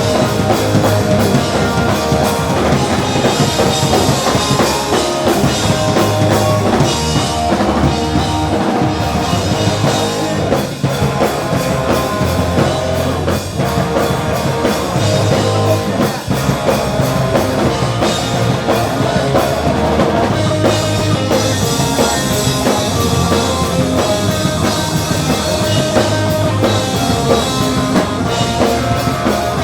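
Punk rock band playing a song live, with a drum kit and electric guitars.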